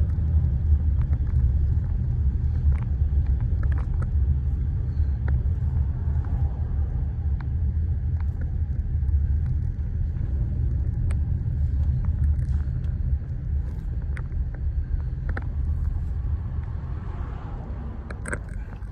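Steady low rumble of a car on the move, heard from inside the cabin, with scattered light taps or clicks over it.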